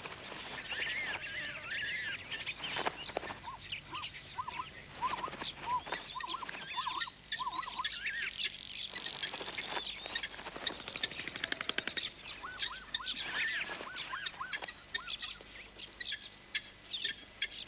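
Many birds chirping and calling at once, short notes that rise and fall, overlapping throughout. About eleven seconds in, a brief rapid rattle of clicks.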